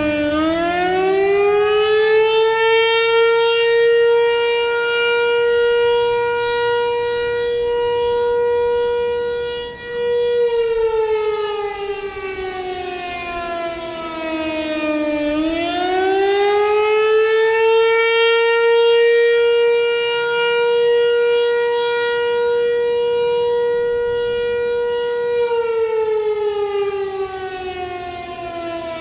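ASC Tempest T-128 outdoor warning siren sounding its custom attack signal. Its tone rises in the first couple of seconds and holds steady for about eight seconds, then winds down over about five seconds. It rises and holds again, and starts falling near the end.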